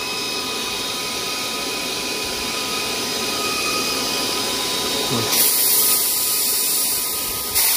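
Spritech ToAuto 4500 psi portable PCP air compressor unit running with a steady whir. About five seconds in, a loud high hiss of compressed air starts as the fill hose is bled off; it breaks briefly near the end and starts again.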